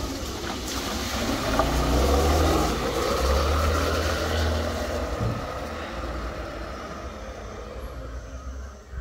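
Motor scooter pulling away through a flooded lane: the small engine running, with water sprayed up by the tyres. The sound is loudest about two seconds in and fades as the scooter rides off.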